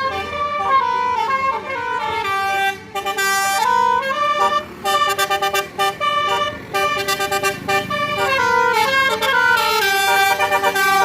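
Tour bus Basuri telolet horn playing a melody in quick stepping notes, with a couple of short breaks.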